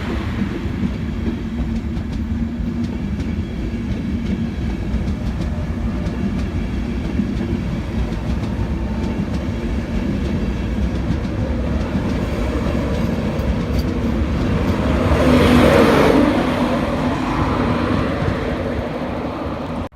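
A train passing on the main line, its wheels rumbling and clattering over the rails, swelling to its loudest about three-quarters of the way through.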